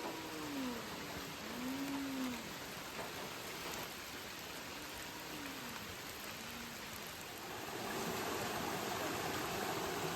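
Steady rain falling, with four short, low, rising-and-falling animal calls in the first several seconds. The rain or water noise grows louder about three quarters of the way through.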